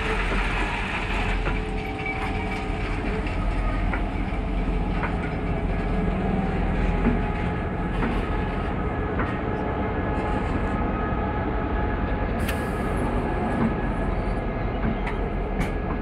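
Diesel locomotive engine running steadily as the locomotive rolls slowly past with ballast hopper wagons, with scattered clicks and knocks from the wheels over the rail joints of the newly laid track.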